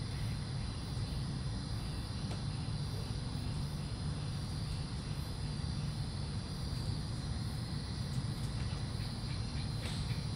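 Steady low hum with crickets chirring continuously in the background on a warm night.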